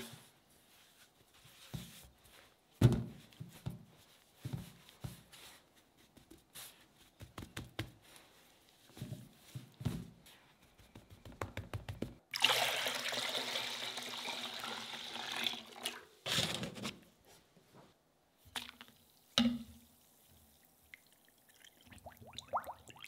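Hands breading a batter-coated whole chicken in a stainless steel tray of dry crumbs: scattered wet squishes and light taps, then about four seconds of steady crumbly hissing a little past the middle as the breading is worked and sprinkled over the bird.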